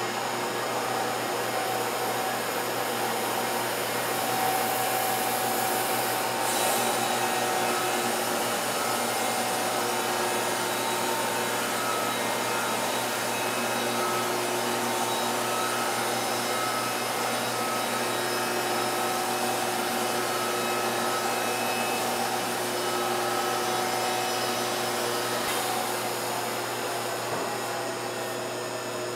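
Wood-Mizer LT50 band sawmill running steadily under load, its band blade cutting lengthwise through an oak log. The noise eases slightly near the end as the cut finishes.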